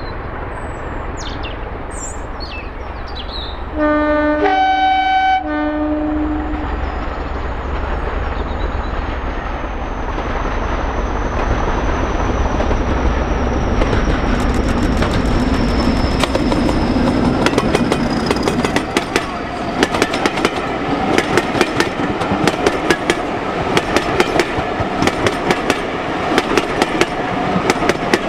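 English Electric Class 40 diesel locomotive approaching and passing under power. About four seconds in it gives a short horn blast on its two-tone horn, changing note. Its turbocharger whistles high and slowly falls in pitch over the engine noise, and from midway the coaches' wheels make a rapid clickety-clack over the rail joints.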